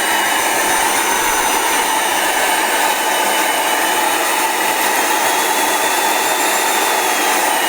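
Vacuum cleaner's brushed motor running at high speed with a steady whirring whine. It is fed through a relay interrupter pulsing at 7 Hz, yet the sound stays even.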